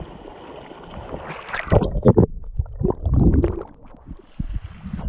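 Shallow stream water gurgling and sloshing right at the microphone, with two louder surges of splashing about a second and a half and three seconds in.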